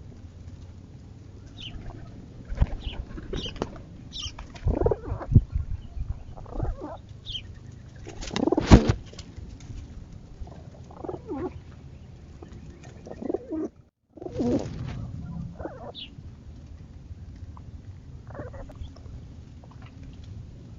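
Pigeons cooing in short, repeated calls, with wing flapping and scattered sharp knocks; the loudest flurry comes about nine seconds in. The sound cuts out briefly about two-thirds of the way through, then the cooing resumes.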